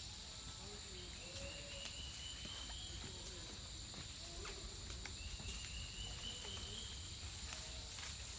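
Tropical rainforest insect chorus: a steady high buzzing drone of many insects, with a drawn-out rising buzz twice, once about a second in and again from about five seconds in.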